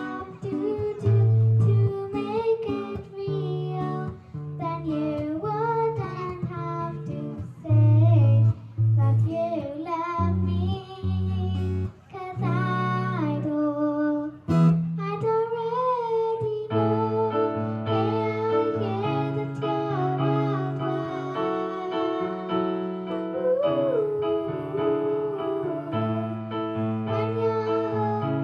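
Music: a voice sings a wavering melody over instrumental chords. About halfway through, the accompaniment changes to long held chords.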